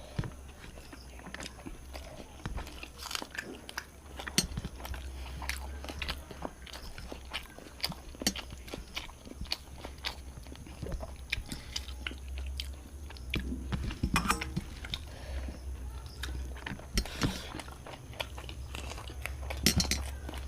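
Close-up eating sounds of people eating a meal of rice and katla fish curry: chewing, mouth clicks and small taps coming irregularly, over a steady low hum.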